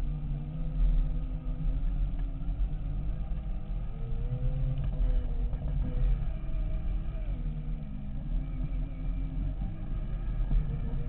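Segway x2's electric drive whining while riding, its pitch rising and falling with speed, over a steady low rumble of the tyres on a rough dirt and gravel trail.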